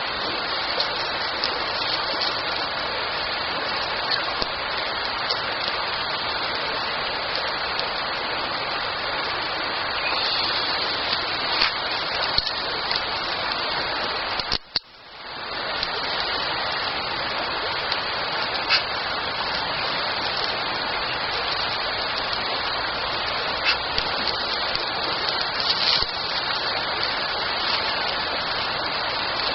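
Campfire burning: a steady hiss with scattered sharp pops and crackles from the wood. The sound drops out briefly about halfway through.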